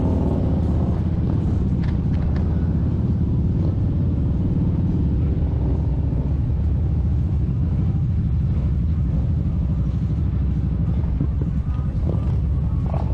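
Kawasaki Vulcan 1700 Vaquero's V-twin engine running steadily at cruising speed, heard as a constant low rumble mixed with wind rush on the riding microphone.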